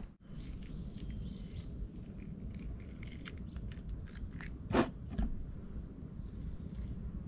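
Handling noises of food preparation, mangoes being peeled and cut by hand: light clicks and scrapes, with one louder knock a little before the five-second mark and a smaller one just after, over a steady low rumble.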